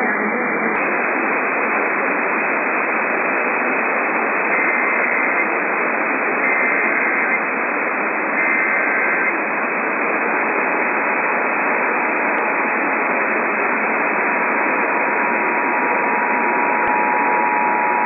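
AM radio reception under heavy static hiss. About five seconds in, three faint one-second bursts of EAS header data tones come a second apart. About ten seconds in, the steady two-tone EAS attention signal (853 and 960 Hz) starts and holds under the static.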